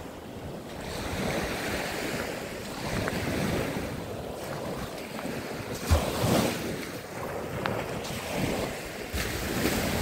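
Small sea waves breaking and washing up a sandy shore, with wind buffeting the microphone. A brief low thump about six seconds in.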